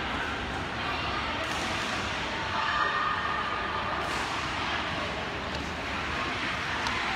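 Steady background din of a large indoor badminton hall between rallies: an even, continuous noise with no shuttle strikes. A brief faint high tone comes about three seconds in.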